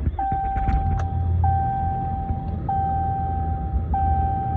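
A 2018 Ram 3500's 6.7 L Cummins diesel fires up and settles into a steady idle, with a dashboard warning chime sounding four times, about every second and a quarter.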